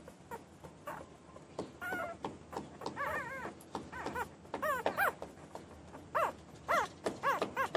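Newborn puppies crying and whining: a string of short, high-pitched squealing cries that rise and fall, sparse at first and coming thick and fast from about two seconds in.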